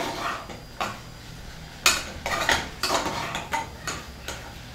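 Metal spoon stirring and scraping in a metal cooking pot, with a string of irregular clinks and scrapes against the pot's sides and bottom, the loudest about two seconds in.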